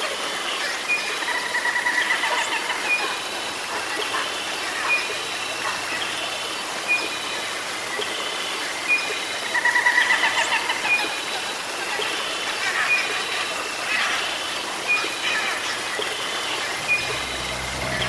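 Jungle ambience: birds calling with short, high chirps repeated every second or so, and a rapid trill that comes twice, over a steady background hiss.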